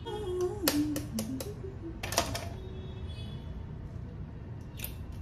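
An egg knocked sharply against the rim of a mixing bowl to crack it: a quick run of hard taps in the first couple of seconds and one more near the end.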